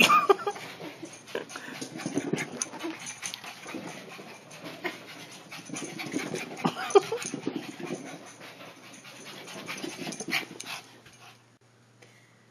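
Shih Tzu panting and huffing as it races around in a play frenzy, with a couple of short high cries near the start and about seven seconds in. The noise dies down near the end as the dog stops.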